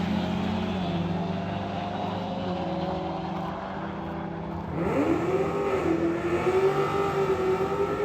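Car engine running at a steady low speed, then rising in pitch about five seconds in and holding at higher revs.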